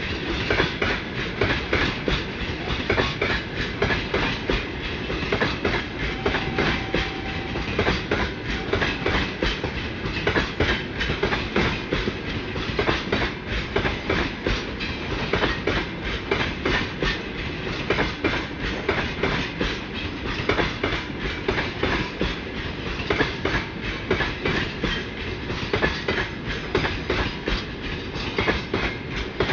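Freight train wagons rolling past, their wheels clacking steadily and densely over the rail joints.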